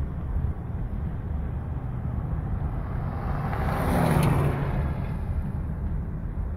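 Steady low rumble of a vehicle driving along a road, with a pickup truck passing close by about four seconds in, its noise swelling and then fading.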